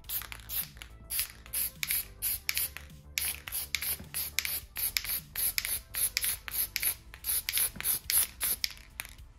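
Aerosol can of Testors red translucent spray enamel spraying in short, rapid bursts, about three a second; the owner calls the old can kind of shot. Background music plays underneath.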